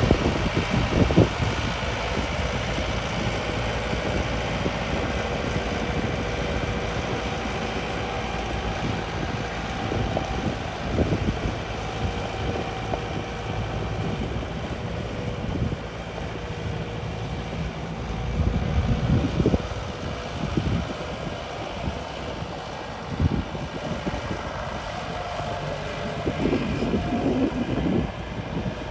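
Yanmar EF725T tractor's diesel engine running steadily while working a field with a plow, with a few short knocks along the way.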